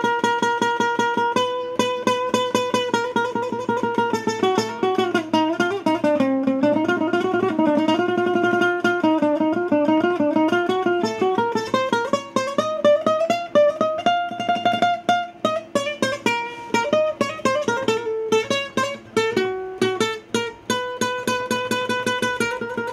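Nylon-string classical guitar played solo, improvising an Arabic taqsim: rapid repeated plucking of single notes carries a melody that steps down, climbs back up, and settles again.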